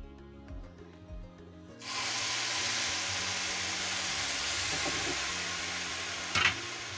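Milk poured into a hot pan of desiccated coconut and ghee, sizzling in a steady hiss that starts suddenly about two seconds in. A single short knock near the end.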